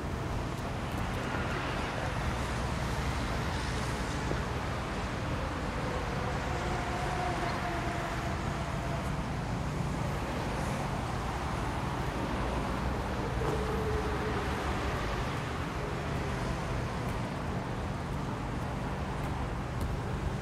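A vehicle engine idling, a steady low rumble that holds even throughout.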